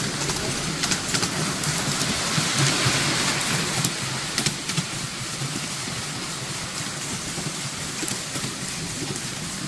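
Miniature railway train rolling along its track with passengers aboard: a steady rushing noise, broken by scattered clicks from the wheels.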